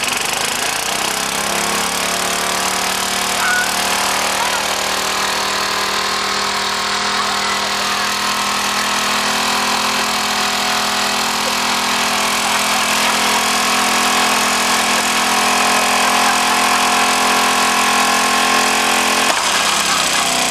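Small petrol engine running steadily and loudly at an even speed. It settles in the first second or two and changes, then stops, near the end.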